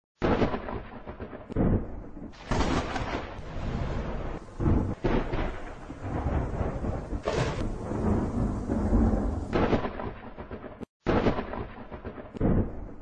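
Thunder sound effect: rolling rumbles with a series of louder crashes, cutting out briefly just before the last few seconds and then crashing in again.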